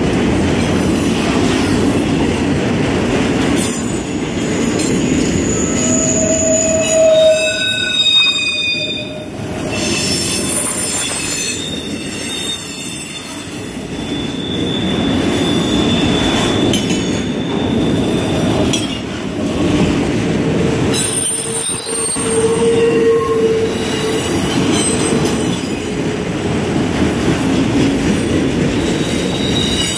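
Autorack cars of a CSX freight train rolling past: a steady rumble of steel wheels on the rails, with short squeals from the wheels now and then and one longer, higher squeal about halfway through.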